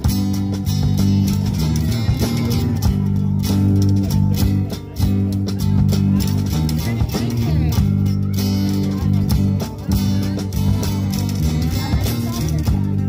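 A live band playing an instrumental passage, with guitar over a sustained, changing bass-guitar line.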